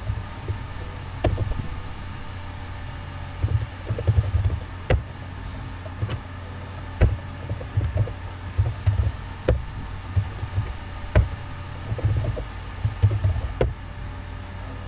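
Computer keyboard keys clicking in irregular runs as code is typed, over a steady low electrical hum.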